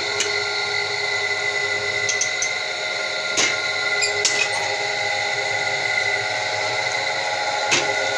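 The electric motor and chain drive of a sawdust compacting press running with a steady whine, packing sawdust into oyster-mushroom growing bags. A few sharp knocks stand out, about half a second apart near the middle and once near the end.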